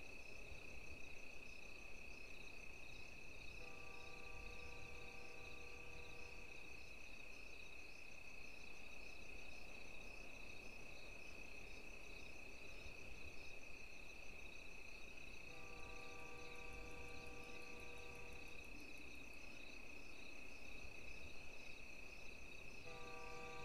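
Night ambience of crickets chirping steadily. Three times a soft held tone with several overtones sounds for about three seconds, the last starting near the end.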